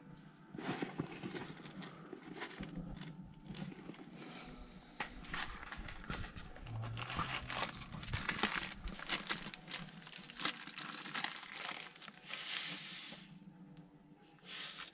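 Close rustling and crinkling of something being handled, with irregular crackles and louder crinkles coming and going; it quietens about twelve seconds in.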